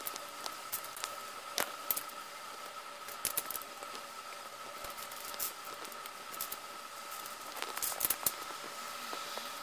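Plastic LEGO bricks clicking and knocking as they are handled and pressed onto a baseplate: sharp, irregular clicks, with a quick cluster near the end, over a faint steady hum.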